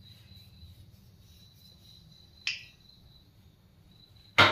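Faint, steady cricket trill over a low background hum. A brief crackle comes about two and a half seconds in, and a sudden loud knock comes near the end.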